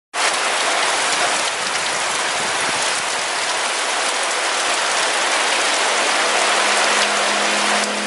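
Heavy rain falling steadily: a dense, even hiss of drops, with many fine ticks of drops striking surfaces.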